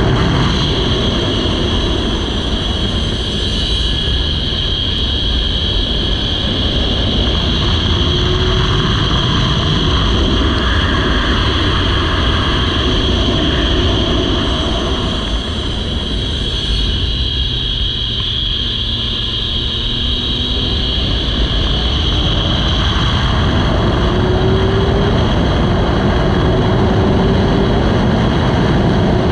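Motorcycle engine at high speed, heard through heavy wind rush on an onboard camera. It eases off through a bend midway, then pulls hard again with the pitch rising.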